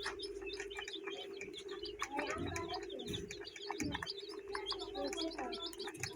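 A crowd of chicks peeping nonstop in many short, high chirps over a steady low hum, with a couple of lower falling calls about two and four seconds in.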